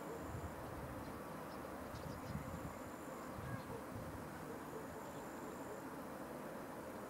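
An insect stridulating: a thin high-pitched buzz about a second long, repeated every two to three seconds, over a steady low background rumble.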